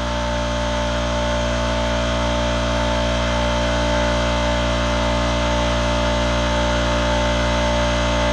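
A power tool running steadily at constant speed, a continuous motor hum with a noisy wash over it and no change in pitch.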